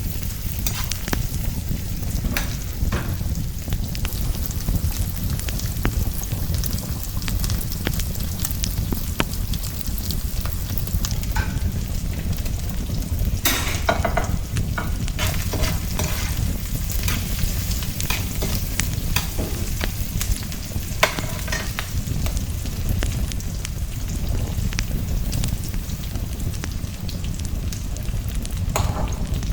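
Food frying in a pan: a steady sizzle with scattered crackles and pops, the busiest stretch about halfway through, over a steady low rumble.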